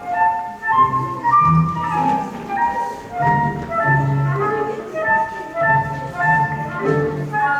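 Instrumental music with a light melody of quick, short notes over a bass line.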